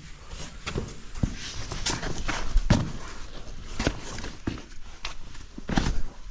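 A hiker's footsteps on stone: irregular steps and scuffs, about one to two a second.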